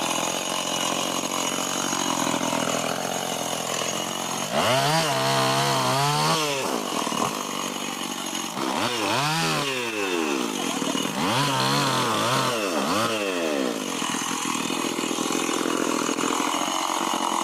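Stihl 070 chainsaw's large two-stroke engine running steadily, its pitch swelling up and falling back three times, about five, nine and eleven seconds in.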